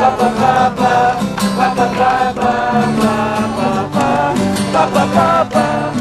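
Acoustic guitars strummed in a steady rhythm with a voice singing along.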